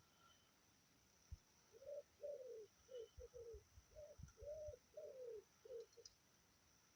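A pigeon cooing a soft, low phrase of hooting notes, repeated several times over a few seconds.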